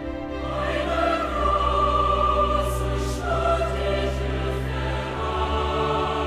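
Background music: after strings, a choir comes in about half a second in, singing long held notes over orchestral backing.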